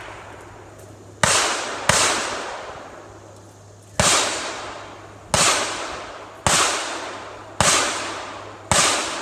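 Seven pistol shots, each a sharp crack followed by a long echoing fade. The first two come close together, and after a pause of about two seconds the other five follow at a steady pace of about one a second.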